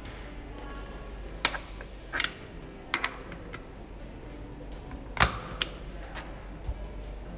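Sharp, scattered clicks and clacks, about six of them, from the small pieces of a mini screwdriver and repair tool set being handled and put back into their plastic storage case.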